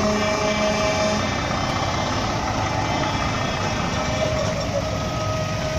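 Scania truck's diesel engine running close by, a steady low rumble.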